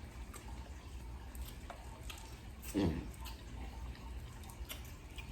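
Quiet wet eating noises of boiled crawfish: small clicks of shells being cracked and peeled, with one short slurp about three seconds in.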